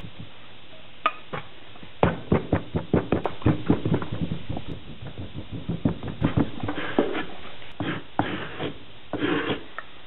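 Molding sand being rammed into a wooden casting flask: a quick run of dull knocks, about four or five a second, followed near the end by a few scraping strokes as the surplus sand is struck off level.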